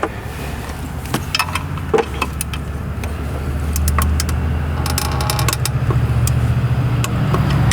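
A ratchet-type torque wrench clicking and metal tools clinking as the thermostat housing bolts are torqued, with a quick run of ratchet clicks about five seconds in. Under it runs a steady low hum that grows louder about halfway through.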